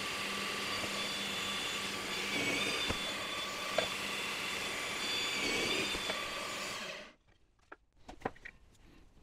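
Steady whir of a motor-driven machine with a low hum and a high whine, stopping abruptly about seven seconds in, followed by a few light knocks.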